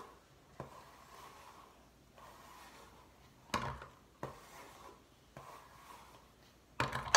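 Hands rustling and rubbing through long hair as it is gathered and smoothed, with a few sudden knocks, the loudest about three and a half seconds in and near the end.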